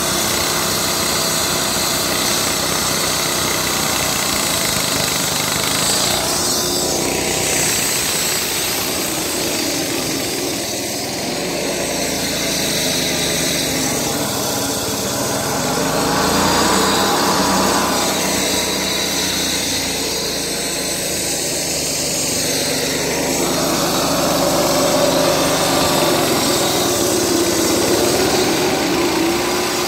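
Diesel walk-behind concrete saw (MCD-216V) running steadily, its blade cutting a wet concrete slab: a continuous engine drone mixed with the grinding of the blade in the concrete.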